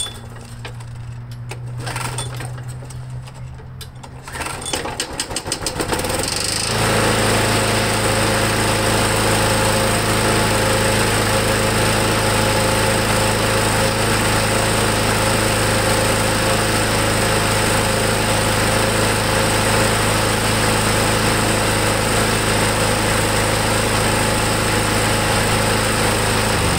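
McLane push mower's small single-cylinder engine, on a newly fitted replacement carburetor, firing unevenly at first, then catching about six seconds in and running steadily at full throttle until it stops at the very end. It is hard to get started but runs fine once it catches.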